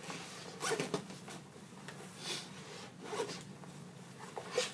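Zipper of a 5.11 backpack's main compartment being unzipped in several short pulls.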